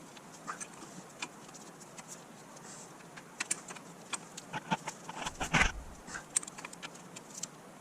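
Irregular light metallic clicks and taps of an adjustable wrench working on an engine's oil pressure switch, with a louder clatter about five and a half seconds in.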